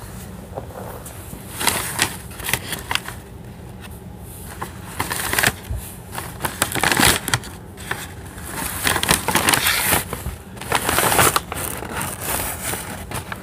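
Blanket and bedding rustling in irregular bursts, with the phone's microphone rubbing against the fabric.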